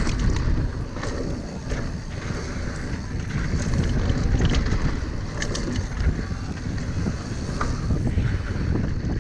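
Wind buffeting the microphone on a mountain bike descending a rough, loose dirt trail. The tyres rumble over the dirt, and short clicks and rattles from the bike are scattered throughout.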